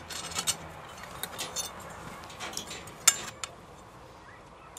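Knives and forks clinking on china plates as people start cutting their food: scattered light clicks, with one sharper clink about three seconds in.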